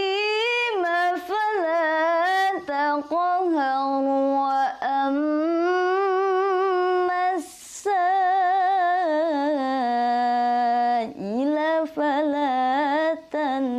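A young woman reciting the Qur'an in melodic tilawah style: long held, ornamented notes that rise and fall, with a wavering vibrato on the sustained tones and a quick intake of breath about seven and a half seconds in.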